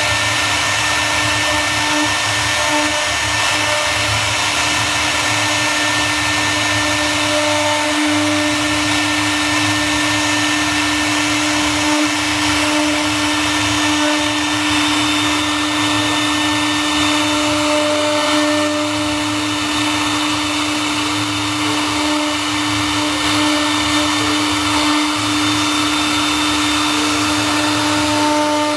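A CNC router's 3.0 kW water-cooled spindle runs at constant speed with a steady whine, its bit cutting wood while engraving.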